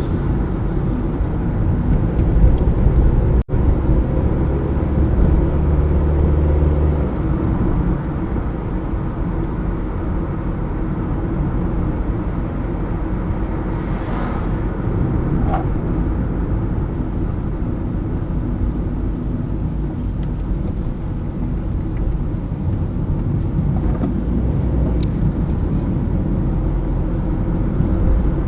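Car driving on a highway: steady engine and tyre rumble, with a brief swish of passing traffic near the start and again about 14 seconds in, and a split-second break in the sound about three and a half seconds in.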